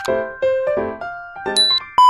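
Intro jingle on electric piano: a quick run of separate notes, with a short high bell-like ding about a second and a half in.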